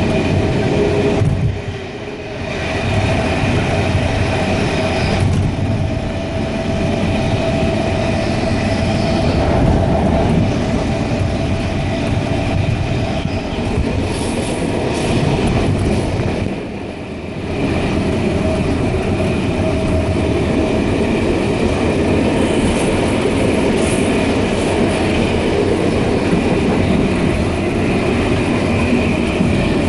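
Sydney Trains electric suburban train running at speed, heard from inside the carriage: a steady rumble of wheels on rails with a constant hum over it. The sound dips briefly about two seconds in and again about seventeen seconds in.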